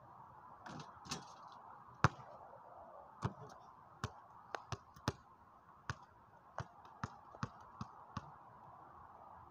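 A basketball bouncing on driveway pavement after a missed shot: a series of sharp bounces, the loudest about two seconds in, coming quicker and closer together toward the end as the ball settles.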